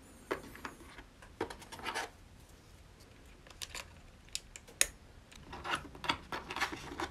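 GMK ABS keycaps being fitted by hand onto a mechanical keyboard's switches: irregular plastic clicks and brief scrapes, with the sharpest click about five seconds in.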